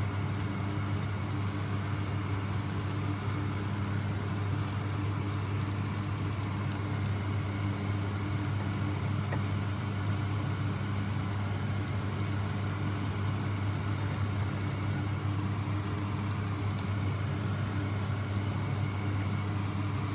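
Steady low hum with an even hiss underneath, unchanging throughout: the running background noise of a kitchen while the curry cooks on the gas stove.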